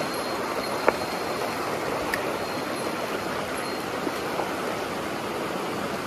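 Shallow mountain stream running over rocks: a steady wash of water, with a single sharp click about a second in.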